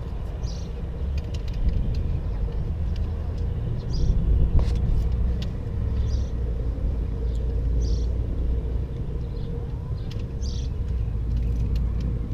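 A steady low rumble, with light clicks and rattles from the Cascade ultralight camp chair's folding aluminium pole frame being handled and fitted together.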